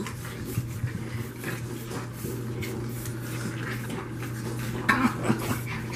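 Seven-week-old French Bulldog puppies scuffling and playing on a fleece blanket: soft rustling with scattered small clicks and clinks, over a steady low hum.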